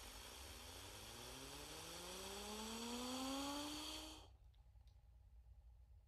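UFO whistle sound effect: a hiss with a slowly rising whistle tone that builds in loudness, then cuts off suddenly about four seconds in.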